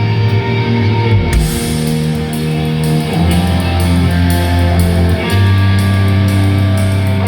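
A live heavy rock band playing an instrumental passage: distorted electric guitars hold low chords that change every couple of seconds over drums and cymbals, with no vocals.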